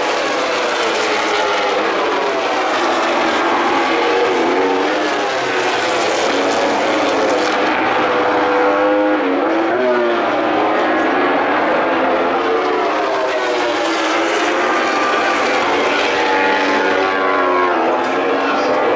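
Racing motorcycle engines at a circuit, several at once, each revving up and down through the gears as the bikes pass, their pitches overlapping and gliding.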